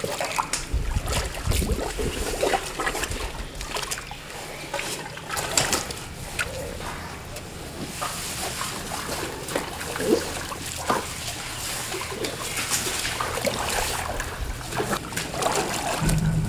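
Baby elephant splashing and sloshing water in a plastic tub, with irregular splashes and water trickling over the rim.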